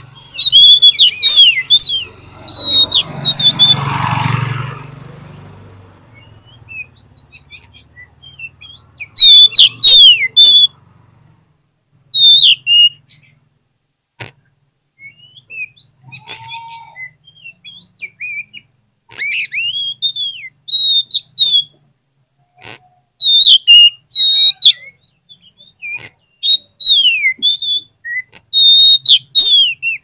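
Oriental magpie-robin singing loud, rapid phrases of varied whistles and chirps in several bouts separated by pauses, the longest run of song in the second half. A rushing noise swells and fades a few seconds in.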